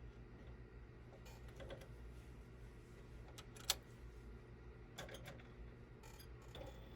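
Faint handling of small objects with a few light clicks and one sharp click about halfway through, over a low steady hum.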